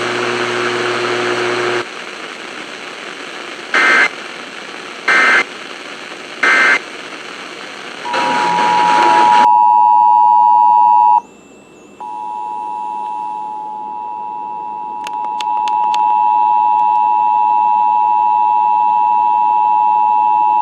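Emergency Alert System radio broadcast: hiss, then three short bursts of warbling EAS digital data tones about a second apart, then the two-tone EAS attention signal. The steady dual tone breaks off briefly about 11 seconds in and resumes for the last nine seconds.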